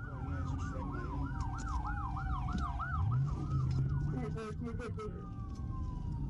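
Police car sirens, a fast yelp of about four rises and falls a second over a slower falling wail. The yelp stops about three seconds in and the slow wail carries on alone. Under it the patrol car's engine and road noise rumble steadily, the engine revving up about three seconds in.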